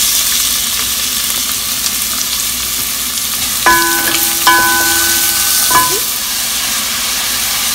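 Chopped onion hitting hot vegetable oil and sizzling loudly. It is stirred with a wooden spatula, which gives a few short squeaks and clicks against the ceramic-coated pot midway through.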